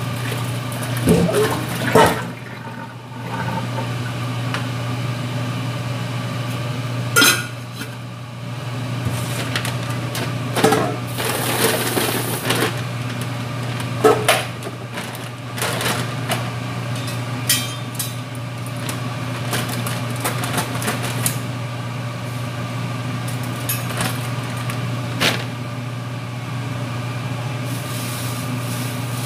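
Cooking clatter of metal pots, bowls and utensils being handled, knocked and scraped at irregular intervals over a steady low hum.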